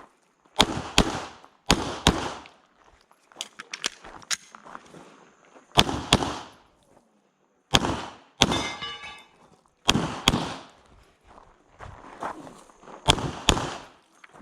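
Glock 17 9mm pistol fired in quick pairs of shots, about six double taps with short pauses between them, with smaller clicks and steps of movement in the gaps.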